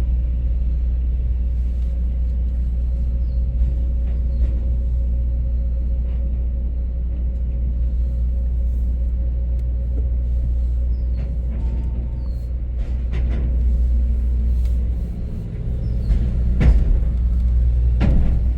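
Steady low rumble of a vehicle on the move, with a couple of brief louder sounds near the end.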